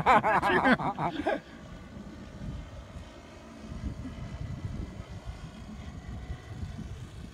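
Radio-controlled model warplanes droning faintly and steadily in the distance as they fly.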